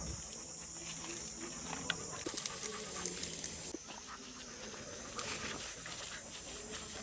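A dog panting, with a steady high drone of insects behind it.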